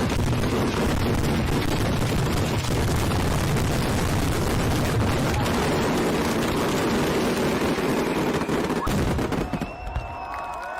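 Fireworks going off in a rapid, continuous barrage of bangs and crackles over a heavy rumble, which stops about nine and a half seconds in.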